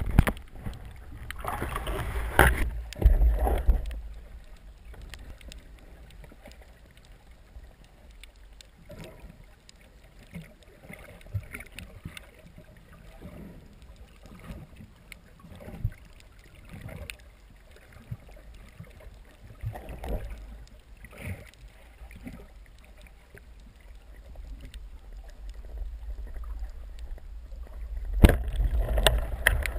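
Underwater sound of a breath-hold spearfishing dive, heard through a camera housing: muffled water rushing and splashing, loudest over the first few seconds and again near the end. In between it is quieter, with scattered short clicks and knocks.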